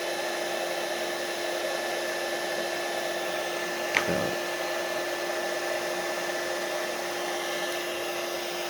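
Electric heat gun blowing steadily while shrinking heat-shrink tubing over a cable: an even rush of air with a constant hum from its fan motor. A single short click about four seconds in.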